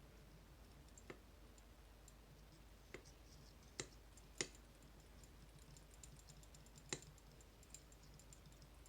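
Small sharp clicks of a lock pick working the magnetic sliders inside a MIWA cam lock: five distinct clicks among faint, light ticking.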